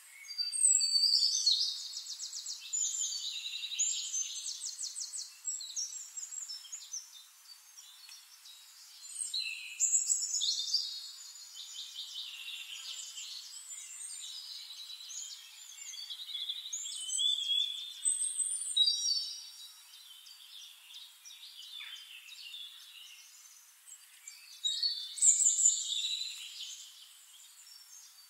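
Songbirds singing in phrases of rapid trills and chirps that come every few seconds, loudest about a second in, around ten seconds in and near the end.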